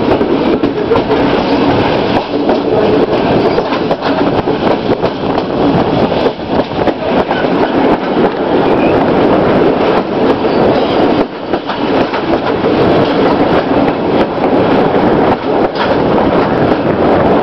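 A train running along the track, heard from aboard: a steady loud rumble of wheels on rails, with occasional clacks as it rolls through the rail yard.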